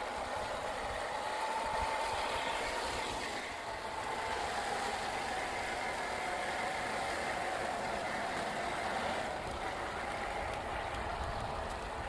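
Electric motor and gear drive of an HB-R1002 Bronco 1/10-scale RC crawler whining steadily as it drives, the pitch wavering slightly with the throttle, over a steady hiss.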